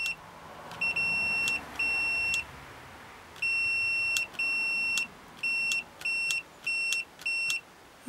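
Multimeter continuity beeper sounding a steady high tone in about nine irregular beeps, the first few lasting half a second to a second and the later ones shorter and quicker. Each beep is the front brake light switch's contacts closing as its plunger is worked; the broken pattern shows the switch making and losing contact.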